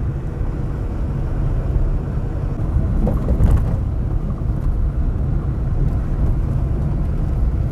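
A car driving on a sandy gravel road: the steady low rumble of tyres and engine, with a brief louder moment about three and a half seconds in.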